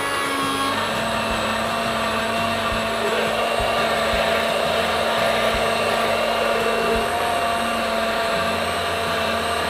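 Countertop electric blender running steadily at full speed, grinding shallots and garlic into a paste, its motor giving a steady high whine.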